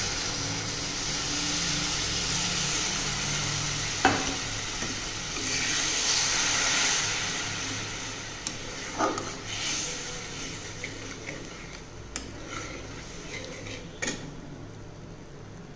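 Water poured into a hot metal kadai of fried curry masala sizzles and hisses while a metal spatula stirs it in, the masala having been fried until its oil separated. Sharp clinks of the spatula against the pan come at about four, nine, twelve and fourteen seconds, and the sizzling dies down in the second half.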